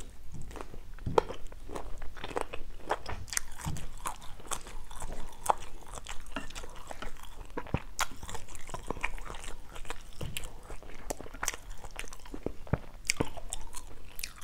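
Close-miked eating of stir-fried instant noodles with squid and shrimp: chewing and biting, an uneven run of many small sharp mouth clicks with no pause.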